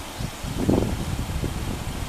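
Wind buffeting the microphone: an uneven low rumbling gusting that starts about a quarter second in, over a steady hiss.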